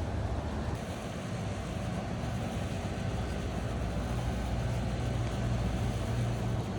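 Cat 305 mini excavator's diesel engine running steadily at a low, even drone.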